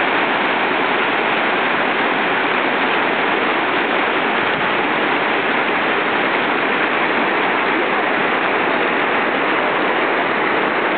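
Steady rush of river water through shallow rapids and over a low weir, an even noise that holds level throughout.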